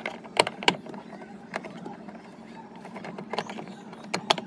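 Sharp plastic clicks and knocks, a handful spread over a few seconds, from a car's inner door trim panel as its retaining clips are released one by one.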